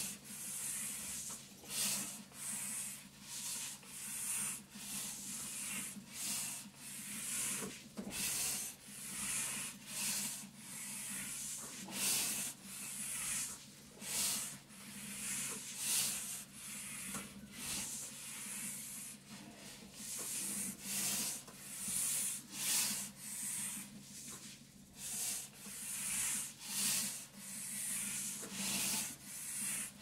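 Rhythmic hissing breaths through a breathing-resistance training mask, roughly one a second, over the steady low hum of a running vibration plate.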